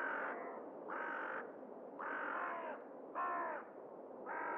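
A crow-like bird cawing repeatedly, about one call a second, over a steady low rush of background noise.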